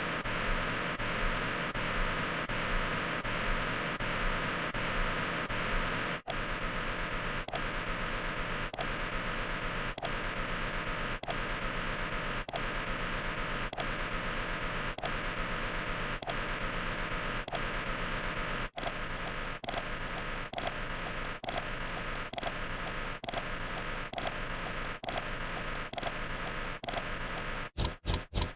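Steady static hiss with evenly spaced clicks. The clicks grow sharper and slower at about six seconds, come faster and more unevenly from about nineteen seconds, and turn into rapid loud pulses near the end.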